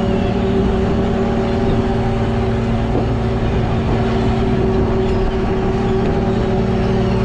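A fishing boat's engine running at a steady speed, a constant drone that does not change in pitch.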